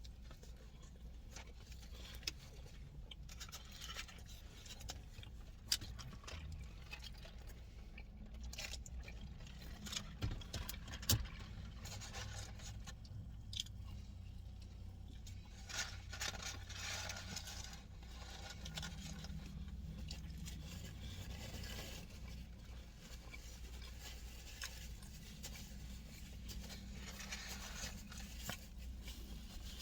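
Faint eating sounds: chewing with scattered small clicks and scrapes, over a low steady background hum.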